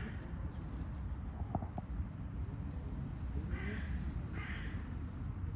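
A crow cawing twice in quick succession about three and a half seconds in, harsh calls, over a steady low background rumble, with a couple of short ticks earlier on.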